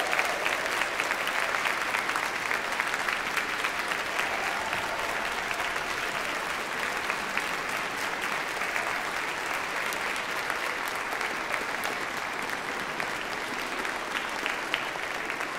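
Large audience applauding, a dense steady clapping that eases slightly toward the end.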